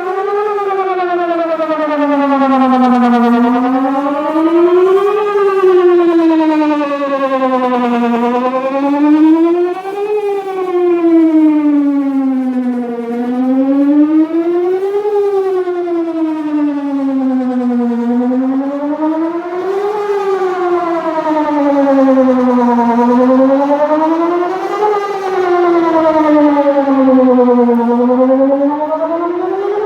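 Outdoor tornado warning siren sounding on test, a loud wail whose pitch climbs and falls in a steady cycle about every five seconds.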